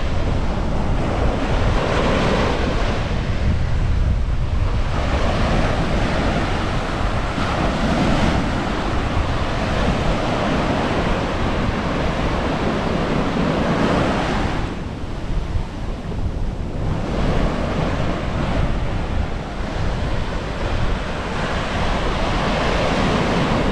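Sea waves breaking and washing up a sandy beach, the surf swelling and fading with each wave, with a quieter lull a little past halfway. Wind buffets the microphone with a low rumble underneath.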